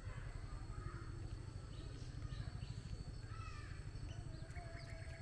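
Birds calling with scattered short chirps and whistles over a steady low rumble.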